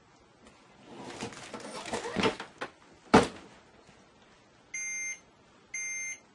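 Sheets being handled with a rustle, then one loud thump as a heat press is clamped shut, followed by the press's electronic timer beeping three times, about once a second.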